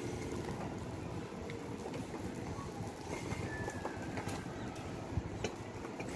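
Outdoor ambience: a steady low rumble of wind on the microphone, with birds chirping now and then.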